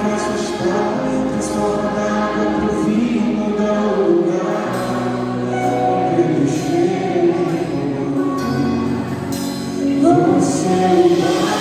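Gospel music: a choir singing with instrumental accompaniment.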